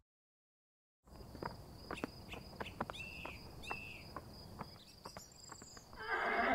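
Desert ambience sound design: after a second of silence, a steady high insect drone like crickets or cicadas comes in, with scattered light ticks like footsteps and two short falling chirps. A louder rushing noise rises near the end.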